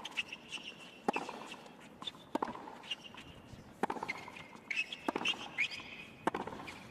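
Tennis rally on a hard court: five sharp racket-on-ball strikes, one about every second and a quarter as the ball goes back and forth, with short high shoe squeaks on the court between hits.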